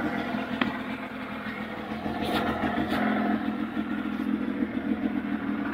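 Ski-Doo Formula Z snowmobile's two-stroke engine running at a steady idle, with a couple of brief clicks.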